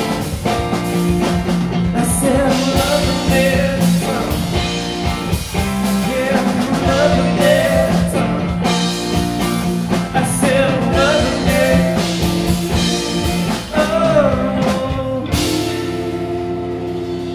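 Live rock band playing: two Stratocaster-style electric guitars, bass guitar and drum kit, with bending lead-guitar lines over a driving beat. About fifteen seconds in the drums stop and the band lets a final chord ring out.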